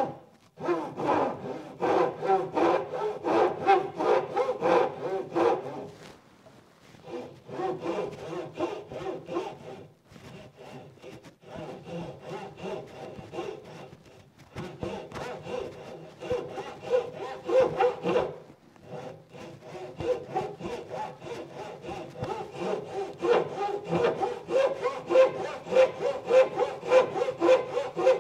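Japanese pull saw cutting a chamfer on a wooden stool leg, in quick, even strokes about two to three a second. The runs of strokes stop briefly several times.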